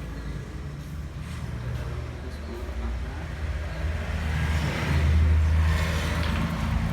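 Low, steady hum of a motor vehicle engine running. It swells louder with a rushing hiss about four to six seconds in.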